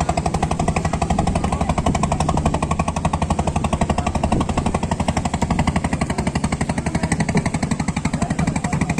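An engine idling with a fast, steady, even thudding rhythm that does not change.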